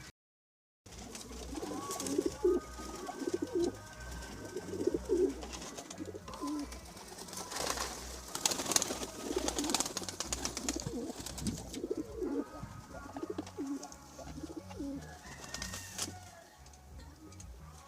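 Domestic pigeons cooing, many short low coos repeated by several birds, after a brief silent gap at the start. A stretch of rustling noise comes around the middle.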